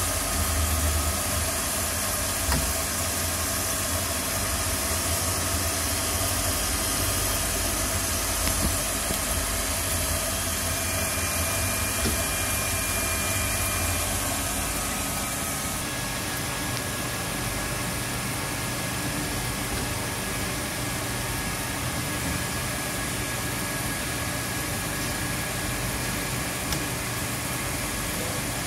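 Steady hum and hiss of a micro-drill sharpening machine running, its grinding wheel spinning, with a few faint clicks; the tone shifts slightly about halfway through.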